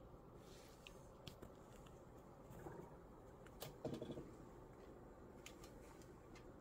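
Near silence with faint taps and clicks of a cat's paws stepping across a desk among a computer mouse and remote, with a brief louder bump about four seconds in.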